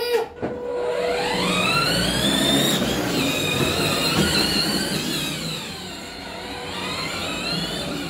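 Electric drive motors of a battery-powered ride-on toy jeep whining as it drives, the pitch rising over the first few seconds, dipping, then falling and rising again near the end as it speeds up and slows.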